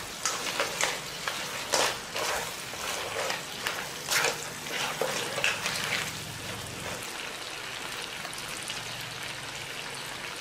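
Crab pieces being stir-fried in sauce in a nonstick wok, tossed with a wooden spatula and tongs: clacks and scrapes of shell and utensils for about the first six seconds, then a steady sizzle of the bubbling sauce.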